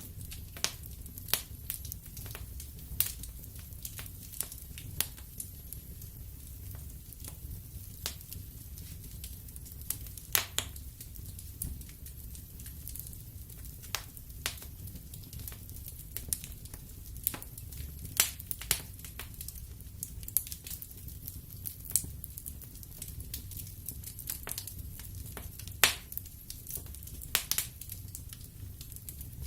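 Wood fire burning in a fireplace: a low steady rumble of the flames with irregular sharp crackles and pops from the burning logs, a few of them loud snaps.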